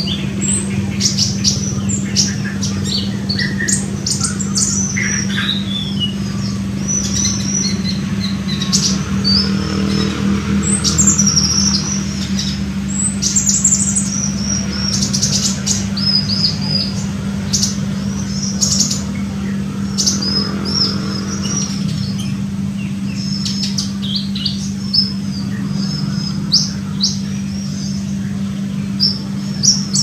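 Olive-backed sunbird song: quick, high-pitched chirps and short twittering trills, repeated over and over, over a steady low hum.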